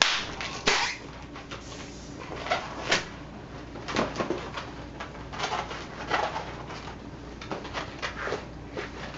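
Latex twisting balloons squeaking and rubbing as they are bent and twisted, in a string of short irregular squeaks, the loudest right at the start and again just under a second in.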